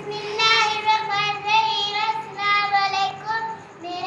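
A young girl singing in a high voice, in long, fairly level held notes with short breaks between them.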